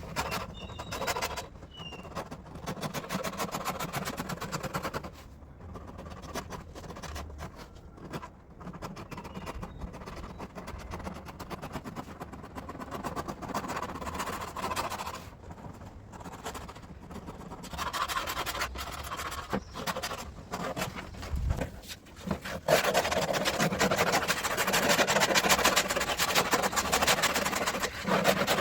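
Scissors snipping and scraping at the peeling surface of a seat back cover panel: a dense run of clicks and scrapes, louder over the last several seconds.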